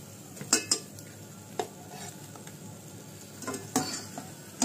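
Potato vadas sizzling in hot oil in a steel kadhai while a perforated steel skimmer clinks sharply against the pan several times as the fried vadas are lifted out.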